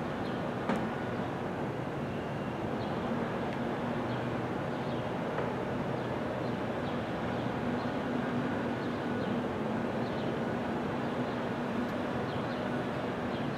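NJ Transit commuter train approaching from a distance: a steady rumble with a faint low hum.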